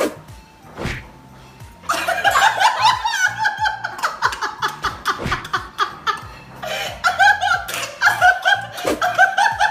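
Hard laughter and a woman's loud, drawn-out crying wails, starting about two seconds in, over background music.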